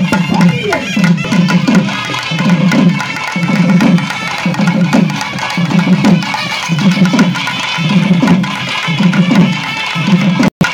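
Live Tamil karakattam folk music: drums beat a steady rhythm of pulses a little more than once a second, under a wind instrument playing a wavering melody. The sound cuts out briefly near the end.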